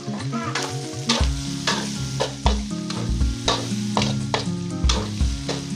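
A spatula stirring tempe and chopped vegetables frying in oil in a pan, with a steady sizzle and quick, regular scrapes about two to three times a second.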